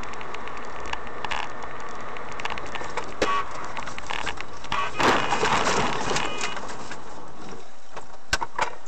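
Car interior noise picked up by a dashboard camera while driving: a steady hiss of engine and road noise with scattered small clicks, and a louder rush of noise about five seconds in.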